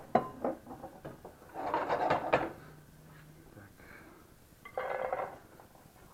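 Kitchen handling noise: sharp knocks of cookware at the start, then short bursts of scraping and rustling as a glass bowl of grated carrot is picked up and tipped into a frying pan, with the last rustle about five seconds in.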